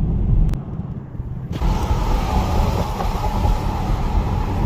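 Car driving across a bridge: low road rumble, then about a second and a half in a sudden, louder rush of wind and tyre noise that holds steady.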